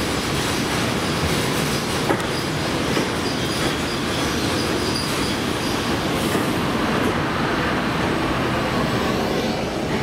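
EP2K DC electric locomotive and its double-deck passenger coaches rolling slowly into the platform: a steady rumble of wheels on rail. There is a faint high whine a few seconds in and a single sharp click about two seconds in.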